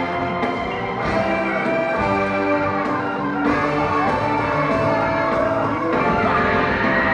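Live brass band horns (trumpets, trombones and sousaphone) playing loud held notes together over a funk band, with several tones sounding at once.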